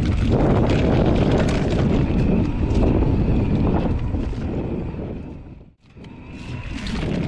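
Wind buffeting the microphone of a camera carried on a moving bike, with rattles and knocks from riding over rough ground. The noise fades away to near silence near the end, then picks up again.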